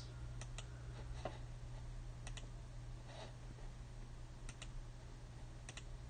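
Faint clicks of a computer mouse, about ten in all, several in quick pairs, over a low steady hum.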